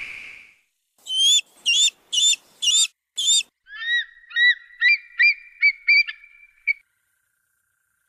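Bald eagle calling: high piping whistled notes, first five loud ones about half a second apart, then a quicker run of about eight lower notes that stops about two-thirds of the way in.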